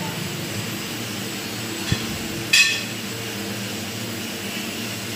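Steady machine hum of a restaurant dining room, with a single dull thump about two seconds in and a short, sharp, high sound about half a second later.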